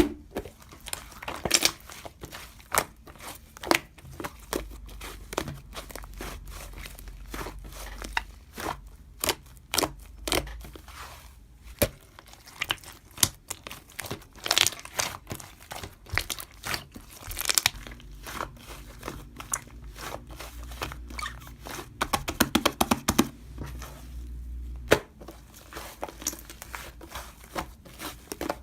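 Irregular clicks, taps and crinkling rustles close to the microphone, like something being handled or unwrapped by hand, over a faint low hum.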